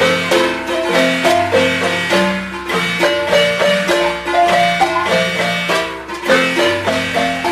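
Upbeat instrumental background music: a steady run of short repeated notes over a bass line.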